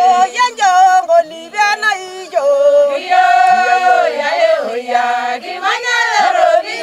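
A group of women singing together, unaccompanied, with several voices holding long notes and sliding between pitches in a chant-like song.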